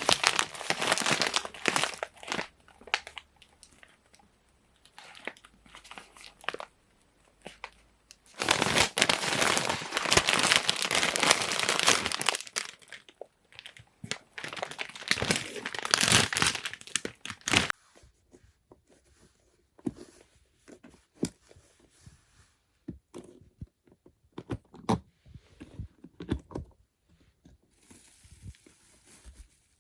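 Shopping bag and product packaging rustling and crinkling as purchases are handled and unpacked, in three longer stretches, then a run of light taps and clicks as items are set down.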